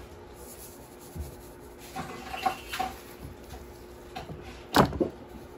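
Quiet handling of a raw salmon fillet on a ceramic plate while it is being salted, with one louder wet slap near the end as the fillet is flipped back onto the plate.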